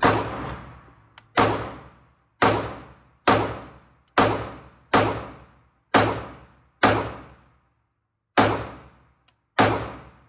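Ten 9mm shots from a Glock 43X pistol at an indoor range, fired one at a time about a second apart with a longer pause before the last two. Each shot is followed by a short echoing decay. The ten rounds empty the pistol's 10-round magazine.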